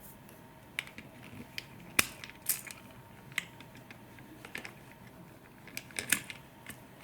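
Scattered small clicks and knocks of hard plastic parts being handled as the cracked power trigger is worked out of a Dyson V10 trigger assembly. The sharpest click comes about two seconds in, with a quick run of clicks near the end.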